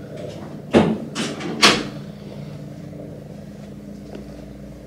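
Two sudden loud knocks about a second apart, with a softer one between them, over a steady low hum.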